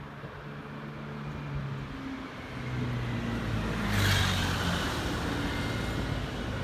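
Road vehicle engine running close by, a steady hum that drops lower in pitch over a few seconds, with a brief loud rush of noise about four seconds in.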